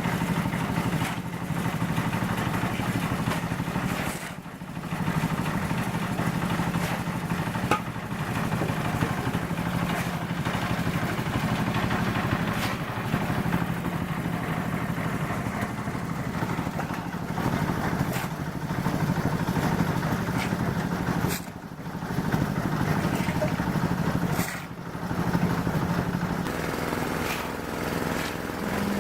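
An engine running steadily, dipping briefly in level a few times, with occasional short clicks and clatters over it.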